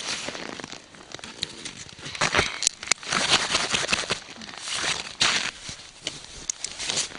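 Snowshoe bindings being strapped onto boots: rustling and crunching of straps, buckles and clothing, with snow crunching underfoot, in irregular bursts.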